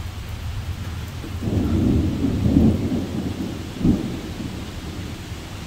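Severe thunderstorm: steady rain and strong wind, with a deep rumble that swells about a second and a half in and a sharp low thump near four seconds.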